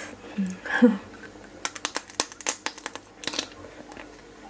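A quick run of about a dozen wet clicks and crackles as meat is sucked and bitten from the shell of a raw fish-sauce-pickled blue swimming crab leg held at the mouth, lasting about two seconds. Two short hums come just before.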